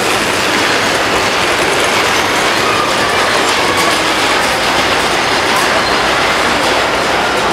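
Standard gauge tinplate model trains running on three-rail metal track: a loud, steady noise of metal wheels rolling over the rails as a locomotive and its cars pass close by.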